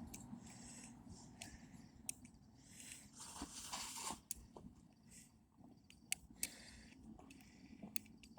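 Lock picks working in a TruGuard door knob lock: faint scattered clicks, with a short stretch of scraping about three seconds in.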